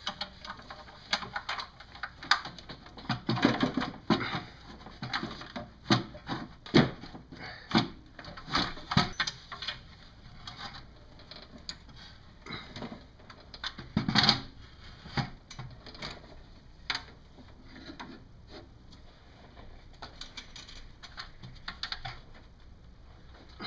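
Irregular knocks, clicks and scrapes of a plastic intake manifold being worked loose and lifted off a 4.7-litre V8, bumping against hoses and engine-bay parts, with a louder clunk about fourteen seconds in.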